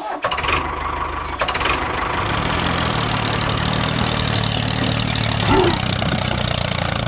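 Tractor engine starting with a clatter over the first couple of seconds, then idling steadily.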